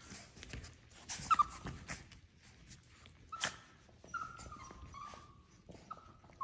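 Teddy bear puppies whining and yipping as they play-fight. There is a sharp yip about a second in and another midway, then a run of short, high whines near the end, with faint scuffling between them.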